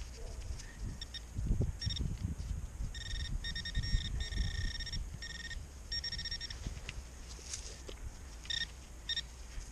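Handheld metal detector, most likely a pinpointer probing the dig hole, sounding a high-pitched electronic tone in pulses of varying length, a run of beeps followed by two short ones near the end: the alert for a metal target in the hole, here a small nail. Low knocks and rustling of handling in the soil sound beneath.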